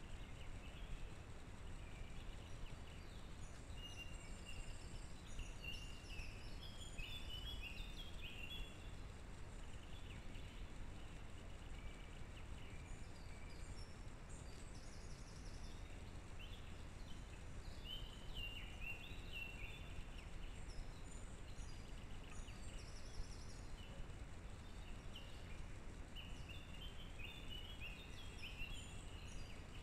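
Small birds singing in short, repeated chirping phrases, scattered through the whole stretch, over a steady low hiss of background noise from the trail camera's microphone.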